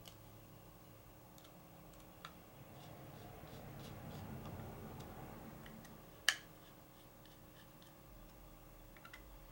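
Faint small clicks and handling rustle of a Cold Steel Recon 1 folding knife being put back together, screws being set into the handle scales with a small screwdriver. One sharper click about six seconds in.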